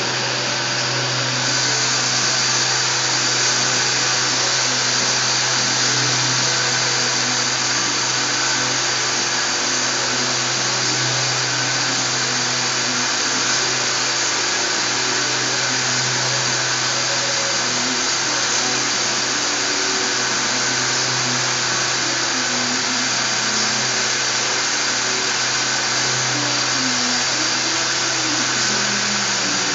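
Gottschild HBS 2600 automatic sanding and polishing machine running steadily: an even hiss with a low hum and a few faint high whines.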